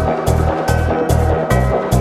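Electronic background music with a steady pulsing bass beat and ticking cymbals on top.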